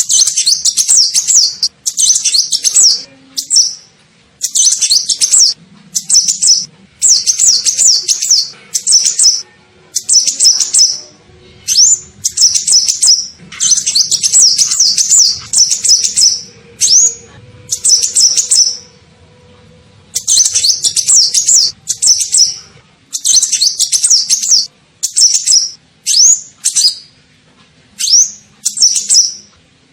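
Kolibri ninja sunbird call used as a bird-catching lure: bursts of quick, high-pitched chirping notes about half a second to a second long, repeated again and again with short gaps.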